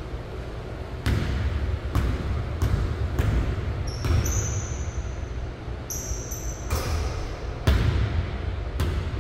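Basketball bouncing on a hardwood gym floor as a player dribbles and shoots, a handful of sharp bounces echoing in the big hall. Two brief high sneaker squeaks on the floor about four and six seconds in.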